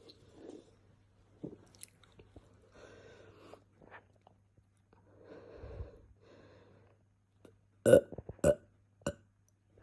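A person belching softly several times after drinking Coke, the gas coming up from the fizzy soda. Near the end come three short, sharp, loud sounds about half a second apart.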